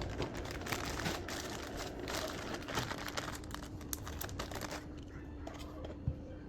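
A plastic bag crinkling and rustling as it is handled, a dense run of quick crackles that thins out and turns quieter near the end.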